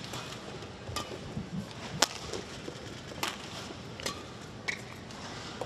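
Badminton rally: rackets striking the shuttlecock in five sharp cracks, about a second apart and coming a little quicker near the end, the loudest about two seconds in.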